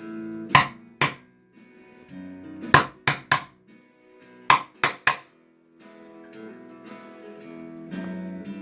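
Acoustic guitar music: a slow passage of held notes and chords, broken by sharp percussive hits, mostly in twos and threes, in the first five seconds.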